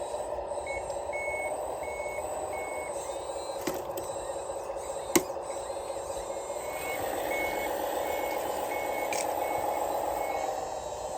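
Reversing beeper on an RC scale model, beeping about twice a second in two runs, over the steady whine of its electric drive, which rises and falls in pitch. A single sharp click comes about five seconds in.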